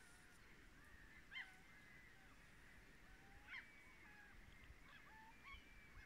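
Faint gull calls from across the lake: a few short, scattered cries over a quiet background.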